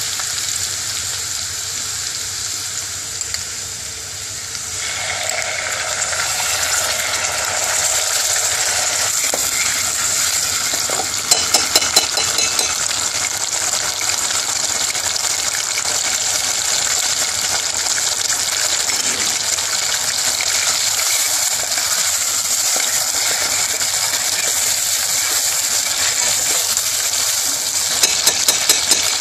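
Whole spices frying in hot oil in a stainless steel saucepan, a steady sizzle that grows louder and fuller about five seconds in, as tomato goes into the oil. A metal spoon clicks against the pan in short runs around twelve seconds in and again near the end.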